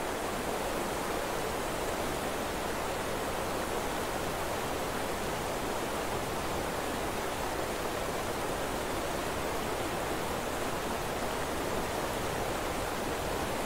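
Steady, even rushing noise with its weight in the low middle and no breaks or changes: the masking sound of a subliminal audio track, under which quiet affirmations are meant to play.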